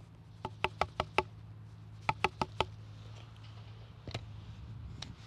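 Sharp wooden knocks tapped on a dead branch in irregular clusters with no steady rhythm, an imitation of a great spotted woodpecker feeding: five quick taps, then four, then two single knocks later on.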